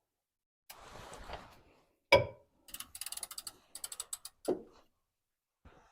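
Socket ratchet clicking in two quick runs as it turns the oil drain plug back in. There is a sharp knock before the clicking and a thump after it, with some rubbing and handling noise.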